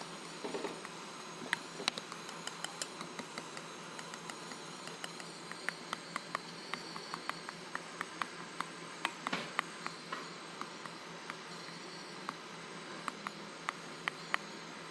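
Spoon stirring wet sticky rice in a metal bowl: small, irregular clicks and scrapes of the spoon against the bowl over a steady hiss.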